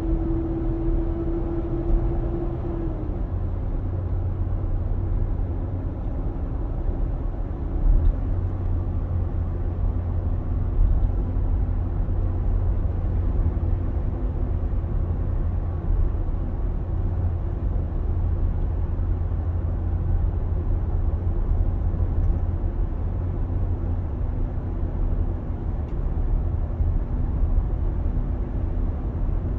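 2021 Nissan Armada's 5.6-litre V8 running with a steady deep rumble, the loud engine noise the owner is complaining about. A hum over the rumble steps down in pitch about three seconds in and then holds steady.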